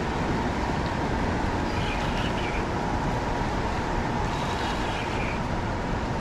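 Steady rush of fast river current running below a dam, with a faint steady hum in it.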